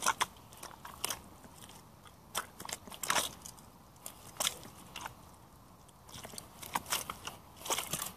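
Yellow Hunter rubber boots stepping in soft mud and wet leaf litter: irregular wet squelching and crackling steps, roughly one a second.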